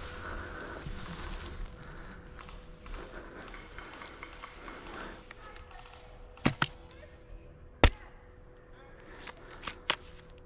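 HPA-powered airsoft bolt-action sniper rifle (Novritsch SSG10 with a Wolverine Bolt) firing a single sharp shot about three-quarters of the way in. Two quick clicks come just before the shot and two more follow it. Faint rustling is heard at first.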